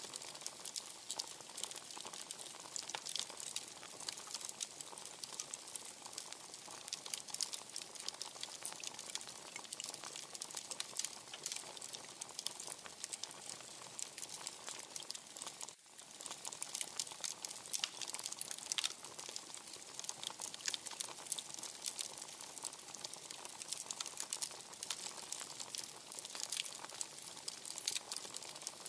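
Wood fire crackling, a dense run of irregular small pops and snaps over a soft hiss; the sound drops out for a split second about halfway through.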